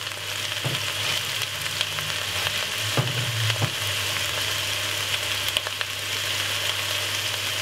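Pre-cut stir-fry vegetables frying in olive oil in a saucepan: a steady sizzle with a few faint crackles, over a low steady hum.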